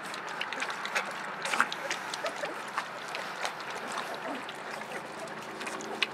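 A litter of vizsla puppies lapping and slurping liquid from shallow metal pans, many quick wet laps overlapping into a steady busy patter.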